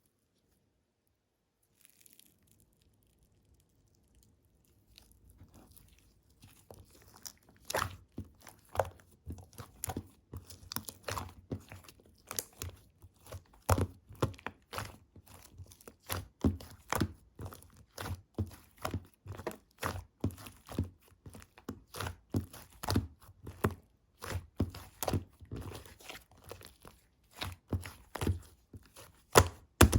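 Hands pressing and squishing slime with clay on top, giving irregular crackling and popping clicks. They start faint about five seconds in and grow denser and louder from there on.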